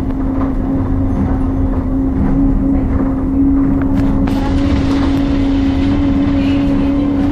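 Cabin sound of an Alexander Dennis Enviro200 MMC single-deck bus: a steady drone from the engine and drivetrain over a low rumble, with a couple of faint knocks about four seconds in.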